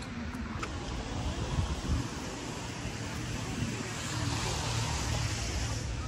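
Outdoor street ambience: road traffic with a low rumble, and a car's hiss swelling over the last two seconds, with some wind on the microphone.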